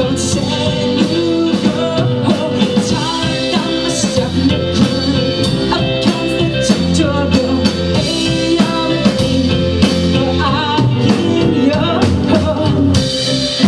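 Live rock band playing loudly, with drum kit and electric guitar, in a small club.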